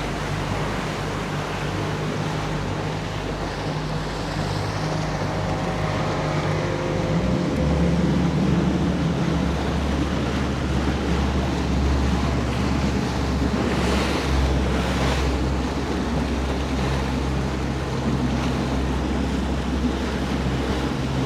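Boat motor running under way, with water rushing and wind buffeting the microphone; the engine note shifts about seven seconds in.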